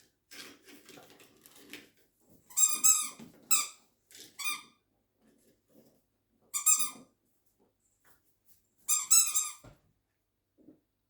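A dog biting a squeaky toy: about five sharp, high-pitched squeaks, some in quick pairs, with soft rustling between them.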